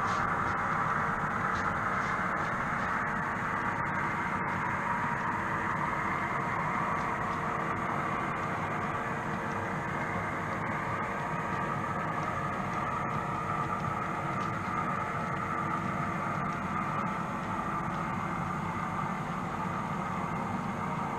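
A model train running on the layout's track, a steady whirr of the locomotive's motor and its wheels rolling over the rails, slowly growing fainter.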